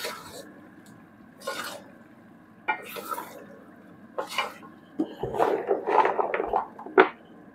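A wooden spoon stirs thick, sticky dried-jujube achaar in an aluminium pan, scraping the pan in short irregular bursts. The stirring is busiest about five to six and a half seconds in.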